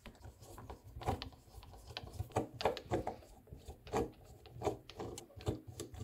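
Screwdriver turning safety Torx screws out of a Type 2 charging connector's plastic contact insert: a run of short, irregular clicks and scrapes.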